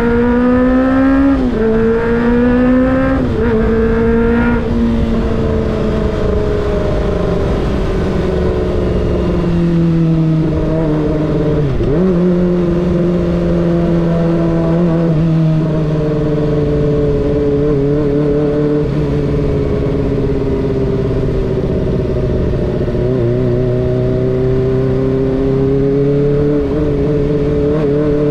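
Kawasaki Ninja ZX-25R's 249 cc inline-four engine accelerating and shifting up three times in quick succession, its pitch climbing and dropping back with each shift, then settling into a steady cruising note. A low rush of wind and road noise runs underneath.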